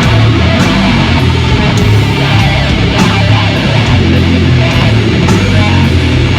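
Doom metal band playing live: a loud, slow, low guitar and bass riff with repeated cymbal crashes.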